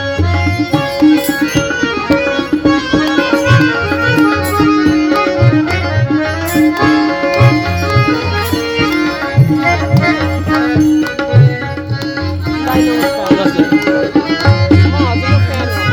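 Instrumental stretch of a Hindu devotional bhajan: tabla drumming with repeated deep bass strokes under a melodic line of long held notes.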